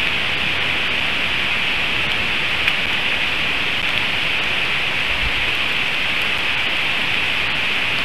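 Heavy rain falling steadily on the forest around the nest: a dense, even hiss.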